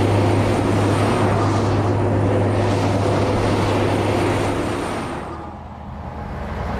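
Heavy mining road train running on the road: a steady, loud, deep diesel drone with tyre and road noise, which dies down about five seconds in and then builds again.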